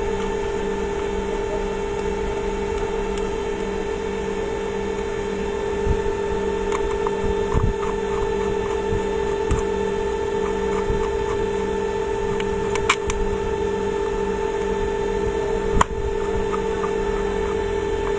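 A steady electrical hum, with scattered light clicks and knocks as the steam iron's plastic and metal parts are handled and fitted back together.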